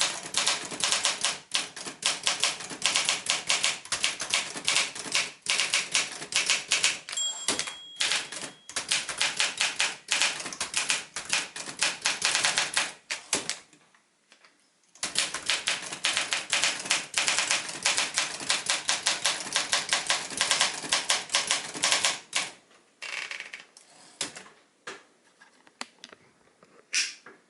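A 1963 Olympia SM7 manual typewriter typing in rapid runs of key strikes. A pause of about two seconds comes roughly halfway through. A short ringing tone sounds about seven seconds in, and only scattered strokes follow from about 22 seconds on.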